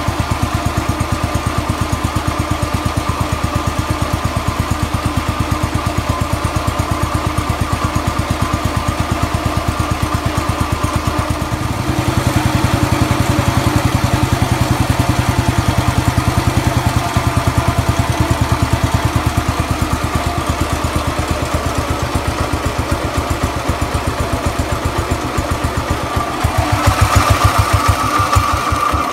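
Cub Cadet garden tractor engine idling smoothly with an even firing beat, soon after a cold start from a month of sitting unused. It grows louder about twelve seconds in and again near the end.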